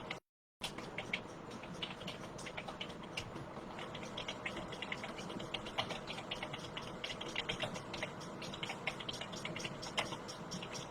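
Someone typing fast on a computer keyboard: a quick, uneven run of key clicks, several a second, during a typing-speed test. The sound cuts out completely for a moment just after the start.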